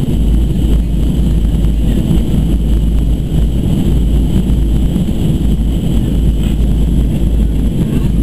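Steady, deep cabin roar of a Boeing 737-200 Advanced: its Pratt & Whitney JT8D turbofan engines and rushing air, heard from inside the passenger cabin.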